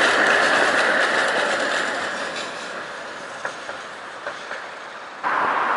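Tatra T3 tram running past close by, its wheels rumbling on the rails with rapid clicking, then fading as it moves away with a few separate clicks. Near the end the rail noise jumps back up suddenly.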